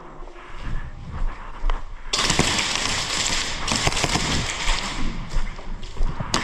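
Low thumps, then about two seconds in a sudden burst of rapid airsoft gunfire: a dense, fast crackle of shots and BB impacts that keeps going, briefly easing near the middle.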